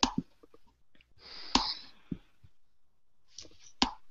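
A few sharp clicks at irregular intervals, with a short breathy hiss between the first two.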